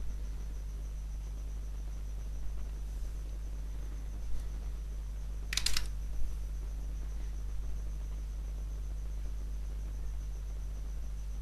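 Steady low electrical hum with a faint constant high-pitched whine, and a brief cluster of clicks about five and a half seconds in.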